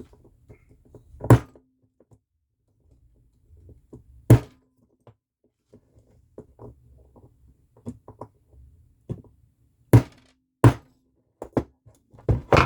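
Hammer blows on a tool set against a Ford Transit Connect hood lock cylinder, driving a part up out of the cylinder. Four loud, sharp strikes spaced a few seconds apart, a quick run of lighter hits near the end, and small clicks of the parts being handled between them.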